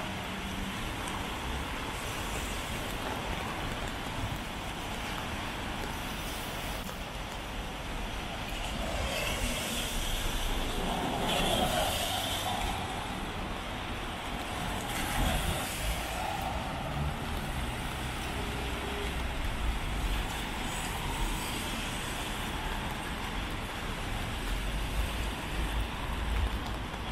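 Street traffic: cars and trucks passing, with a short hiss a little before the middle.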